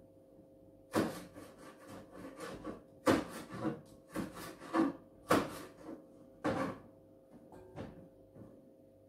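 Green beans being prepared by hand at a kitchen sink: irregular sharp knocks and clicks with rubbing between them, the loudest a few seconds in, over a faint steady hum.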